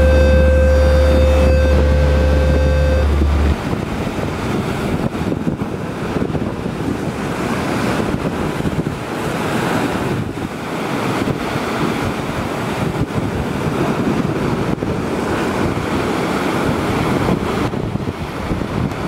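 Surf breaking and washing over coastal rocks, with wind rumbling on the microphone. A held low chord with a deep bass, the tail of the soundtrack music, cuts off about three and a half seconds in.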